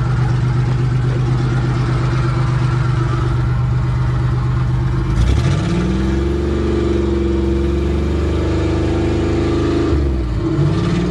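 Minivan's 60-degree V6 engine running as the van is driven, heard from inside the cab; about five seconds in the engine climbs in pitch and holds there, then dips briefly near the end and climbs again. The engine is running again after being hydrolocked.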